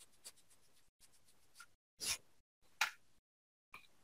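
A few short, faint scraping and rubbing sounds of the logic board and tools being handled, the loudest about two seconds in and again shortly before three seconds.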